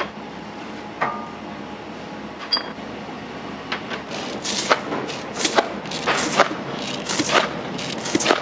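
Restaurant kitchen clatter: a couple of sharp clinks of utensils on crockery, one with a short ring, then a quick run of short scraping, swishing noises over the last few seconds, over a steady background hum.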